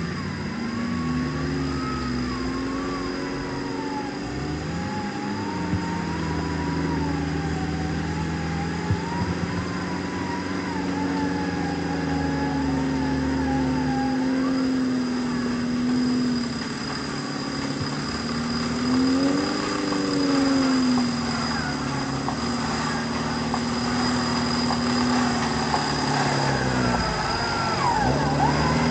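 Off-road 4x4 engine running and revving, its pitch rising and falling as the throttle changes. It climbs in pitch about two-thirds of the way through and again at the end.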